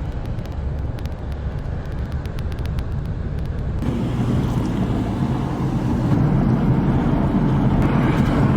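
A car driving, with a steady low engine and road rumble that grows louder about four seconds in.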